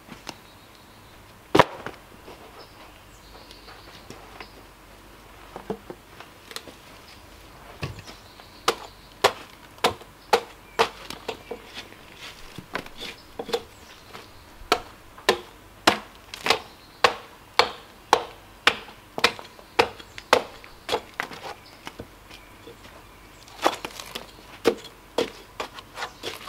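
A hand tool struck repeatedly against a tulip poplar log, chopping and knocking off its thick bark. One loud knock comes about a second and a half in. From about eight seconds there is a run of sharp chopping strikes, roughly two a second, with a short pause before a last flurry near the end.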